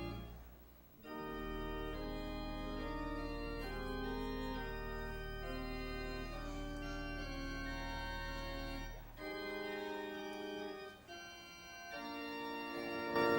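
Church organ playing slow sustained chords over a held low pedal note; the bass drops out about nine seconds in and the chords carry on more softly.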